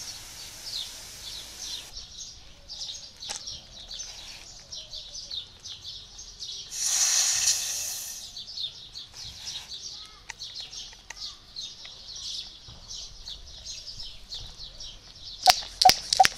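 Hand pump pressure sprayer: a faint hiss of mist from the nozzle at first, then a loud burst of air hissing out as the pressure-release button on top is pressed about seven seconds in. Near the end the pump plunger is worked in quick, even strokes, about three to four a second. Birds chirp throughout.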